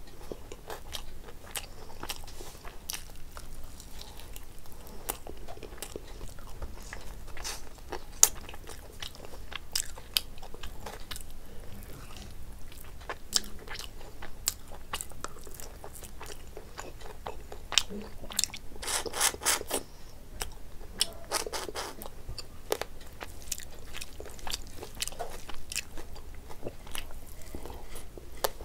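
Close-up mouth sounds of a person eating chicken and rice by hand: chewing, wet lip smacks and crunchy bites, giving many sharp clicks. There is a louder, rapid run of sound about two-thirds of the way through.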